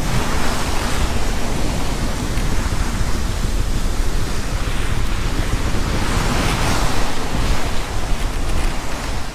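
Seawater rushing and breaking along the hull of a sailboat under way in rough sea, with strong wind buffeting the microphone. The rush swells a few times.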